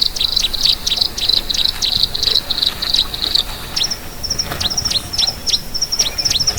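A flock of small aviary birds chirping rapidly, a dense chatter of short high calls. About halfway through, the chatter thins into separate sharp, downward-sweeping chirps.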